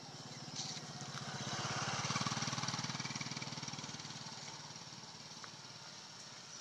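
An engine passing by: its fast, even running grows louder to a peak about two seconds in, then fades away.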